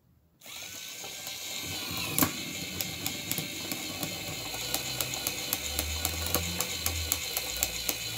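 A battery-operated, 3D-printed walking spider robot starts up about half a second in: its small electric motor runs steadily, driving the printed gear train and leg linkages. A regular clicking, about four a second, comes as it walks.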